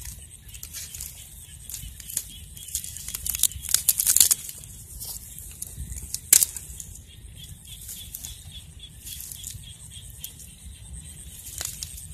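Dry weeds and dead stalks rustling and crackling as they are pulled apart by hand and poked with a stick, with a burst of sharp cracks about four seconds in and a single loud crack about six seconds in.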